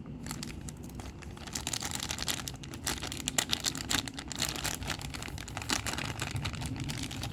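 Plastic packaging of a replacement rear wiper blade being handled, with irregular light clicks and crinkles, several a second.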